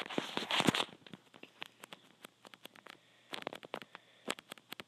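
Handling noise from a phone held in the hand: a short rustle right at the start, then scattered small clicks and taps.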